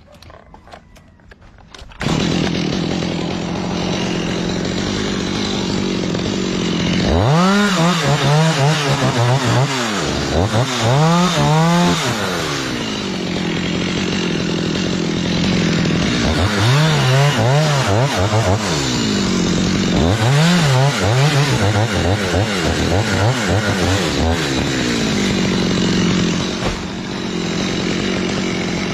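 Chainsaw engine starting loud about two seconds in and running steadily, revved up and back down four times.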